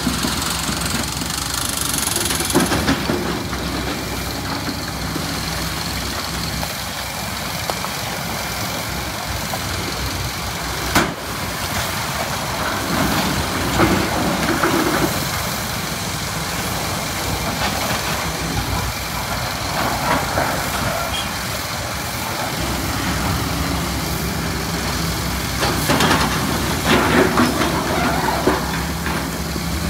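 SANY SY365H PRO excavator's diesel engine running steadily while it loads andesite rock, with a sharp knock about eleven seconds in and bursts of scraping and clattering as the rock is handled, loudest near the end.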